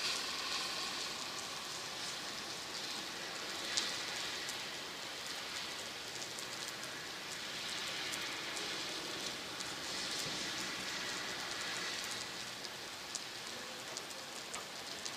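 Steady rain falling, an even hiss with sharp drip ticks scattered through it; one louder tick about four seconds in.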